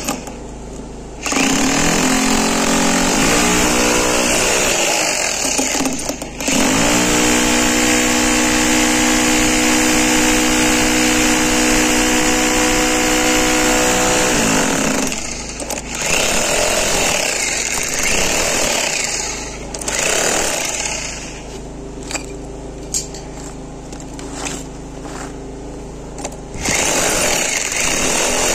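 Electric demolition hammer with a flat chisel breaking up floor tiles and the mortar bed beneath them, running in long stretches with brief stops. It runs quieter for several seconds after the middle, then at full strength again near the end.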